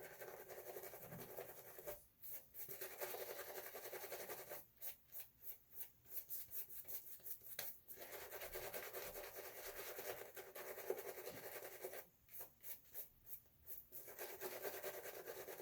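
Boar-bristle shaving brush being worked through Williams shaving soap lather: a soft, scratchy rubbing that breaks off and resumes a few times.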